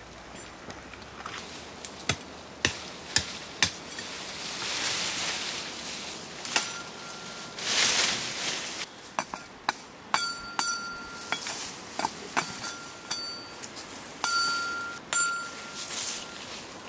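A long wooden pole knocking and clacking against tree branches, with swells of leaf rustling. Several short, clear high ringing notes come in the second half.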